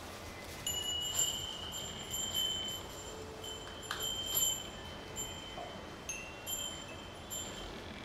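Metallic chiming: clear, high ringing tones that sound again and again with short gaps between, each held for up to a second, with a few light knocks about a second in and around four seconds in.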